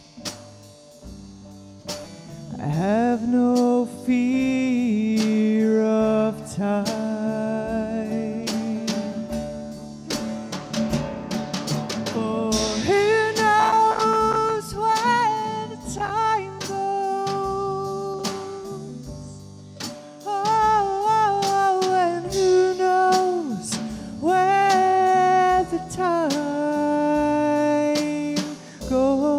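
Slow band music with drums, guitar and a lead melody of long, wavering held notes.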